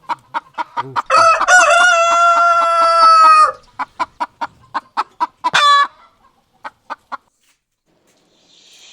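Chicken clucking in a quick, even run of about four clucks a second. About a second in, a long crowing call holds for over two seconds, and a shorter call comes about halfway through. The clucking stops about seven seconds in.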